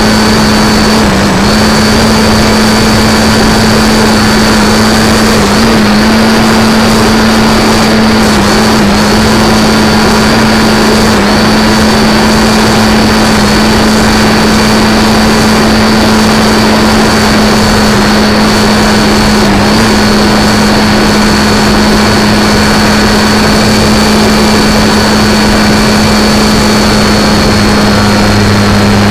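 Radio-controlled model airplane's motor and propeller heard from a camera on board: a loud, steady drone at one pitch with a thin high whine above it, dipping briefly a few times.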